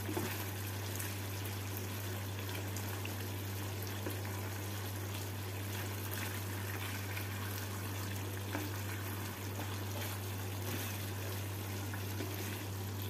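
Thick chicken gravy simmering in a nonstick frying pan while a spatula stirs and turns the chicken leg pieces through it, a steady bubbling hiss with a few faint scrapes. A steady low hum runs underneath.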